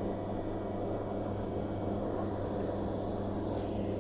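Steady low machine hum, unchanging, from the hydraulic power unit that drives the multi-way valve.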